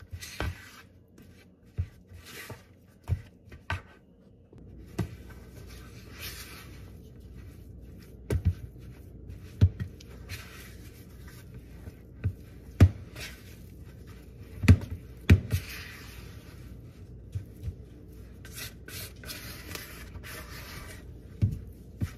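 Silicone spatula stirring thick cookie dough in a plastic mixing bowl: irregular rubbing and scraping, with occasional knocks of the spatula against the bowl.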